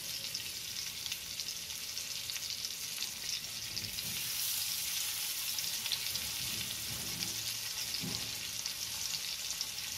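Oil sizzling under marinated trevally steaks shallow-frying on a tawa (dosa griddle). About four seconds in a second steak is laid into the hot oil and the sizzle grows louder.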